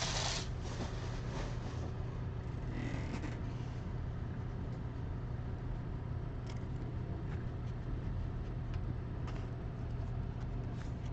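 Faint rustling and a few light clicks of card-box packaging being handled and opened, over a steady low electrical hum.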